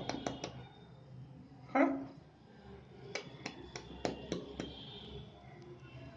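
A man making a series of sharp clicking sounds with his mouth to amuse a baby, several in quick succession between about three and five seconds in, with one short voice sound about two seconds in.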